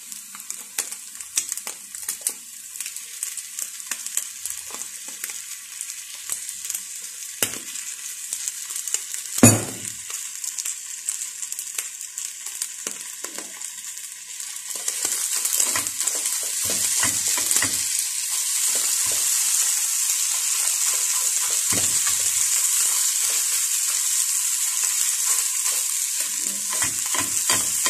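Scrambled eggs sizzling in a nonstick frying pan, with small clicks and scrapes from a utensil stirring them. There is a single sharp knock about nine seconds in. The sizzle turns markedly louder about halfway through and stays there.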